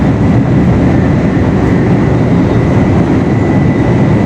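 Shinkansen bullet train at speed, heard from inside the passenger car: a steady, loud rumble of running noise with a faint high whine held throughout.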